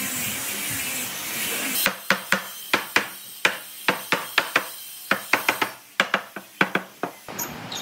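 A steady hiss that stops about two seconds in, followed by a run of sharp, irregular hammer taps on wood, about three or four a second, which end shortly before the close.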